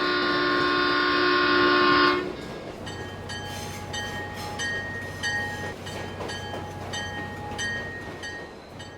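A locomotive's multi-chime horn sounds for about two seconds and stops. Then a bell rings steadily, a little under twice a second, over a low steady engine rumble.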